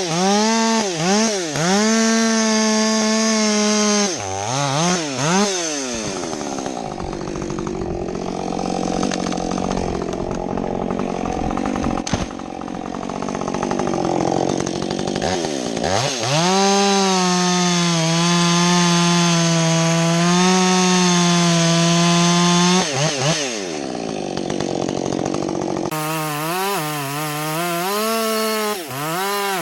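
Husqvarna two-stroke chainsaw revving in short throttle blips, then running at full throttle with its pitch dropping and wavering while the chain cuts into wood for several seconds. It then runs high and steady again, and goes back to throttle blips near the end.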